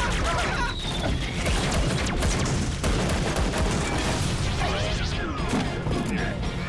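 Cartoon soundtrack: rapid clattering and crashing effects over music, with a few short squeaky vocal glides near the end.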